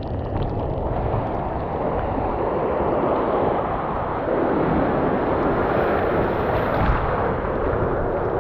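Ocean surf washing around a paddleboard in breaking waves, a steady rushing noise, with wind buffeting the microphone.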